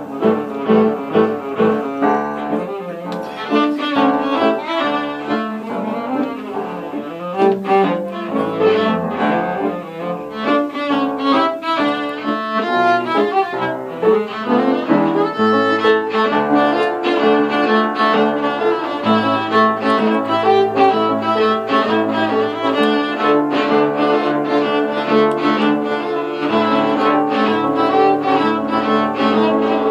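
Cello and upright piano playing a tarantella together, the cello's bowed melody over the piano's accompaniment in quick, busy notes.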